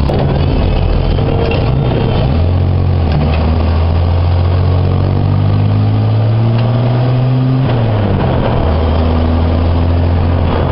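Wolseley 6/90's 2.6-litre C-series straight-six pulling the car along, heard from inside the cabin. Its note climbs steadily as the car accelerates, drops sharply near eight seconds in as at a gear change, then pulls up again.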